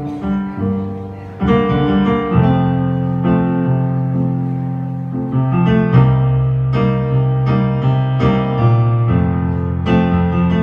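Piano chords played on a stage keyboard with no voice: sustained low chords, a new one struck roughly every second, getting louder about a second and a half in.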